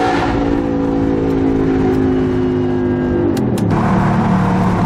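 Audi R8's 4.2-litre V8 with an Armytrix exhaust, heard from inside the cabin: the engine holds steady revs that sag slightly, then the revs fall away sharply about three seconds in with two sharp pops, and start to climb again near the end.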